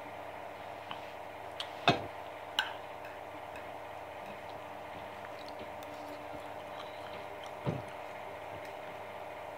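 A few sharp clicks of a fork against a plate during a meal: a small tick about a second in, the loudest click about two seconds in, another just after, and one more near the end, over a steady low hum.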